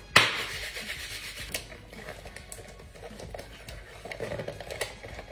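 Rubber-gloved hands handling and opening a small cardboard box: scratchy rubbing and scraping with a few light clicks. A sharp knock comes just at the start and is the loudest sound.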